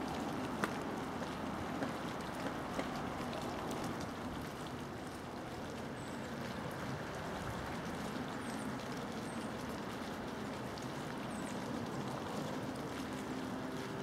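Steady outdoor rushing noise, with a few faint sharp taps in the first few seconds and several small, high chirps further on.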